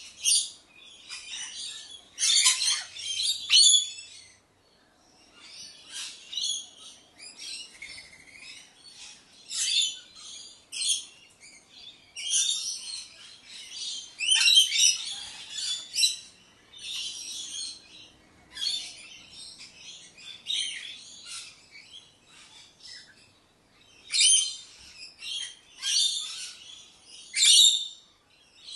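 Rainbow lorikeets chattering: short, rough, high-pitched screechy calls in bursts every second or two, some louder and closer than others.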